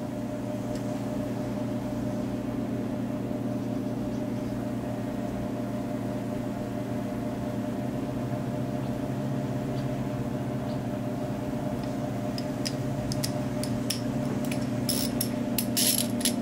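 A steady low hum throughout; in the last few seconds, sharp metallic clicks of a ratchet and 10 mm socket being handled, coming closer together near the end.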